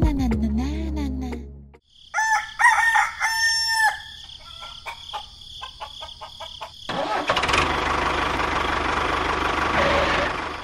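A rooster crows, a couple of calls with bending pitch about two and a half seconds in. From about seven seconds a loud, steady whirring noise runs on until just before the end.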